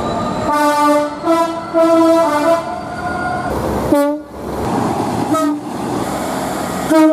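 Diesel locomotive two-tone horns: a run of horn blasts alternating between a high and a low note over the first few seconds, then short single blasts about four seconds in, again a second and a half later, and near the end. Diesel engine rumble and rail noise fill the gaps between blasts.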